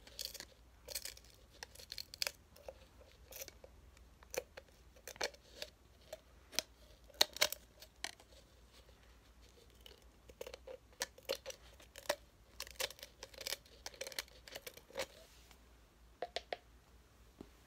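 Close-miked ASMR sounds: a run of sharp, irregular clicks and crackles, with short gaps between them.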